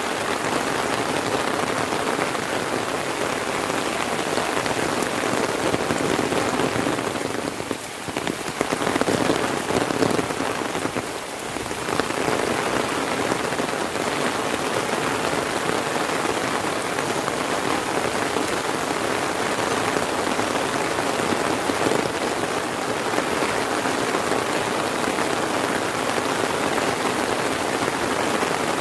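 Heavy rain falling steadily, a dense even hiss of drops hitting the ground, easing for a moment about eight seconds in and again near twelve seconds.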